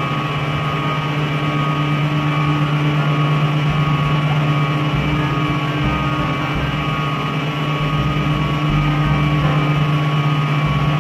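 A steady mechanical drone: a constant low hum with a few higher steady tones, like an engine or machine running without change. Irregular low rumbles from wind on the microphone sit under it.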